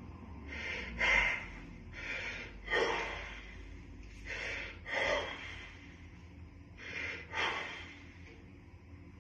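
A man breathing hard in short, sharp bursts while straining to hold a most-muscular pose: four quick pairs of breaths, about one pair every two seconds.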